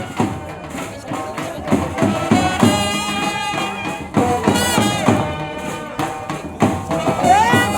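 Music with a steady beat and held melodic notes, with some sliding notes near the end.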